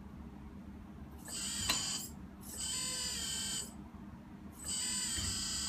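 A 1/16 Huina K336GC RC excavator's small electric drive whining in three bursts of about a second each as it is worked from the transmitter, with a sharp click during the first burst.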